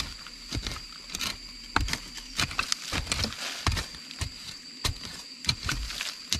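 A machete blade stabbing and scraping into forest soil while digging out a deep-set tuber: irregular dull knocks, roughly two a second.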